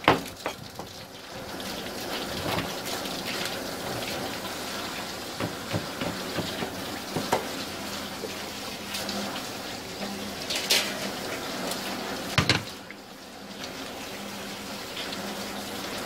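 Tap water running steadily from a faucet onto a cutting board, splashing over rubber-gloved hands and a piece of red sea bream as it is rinsed. Occasional sharp knocks sound on the board, the loudest about twelve and a half seconds in.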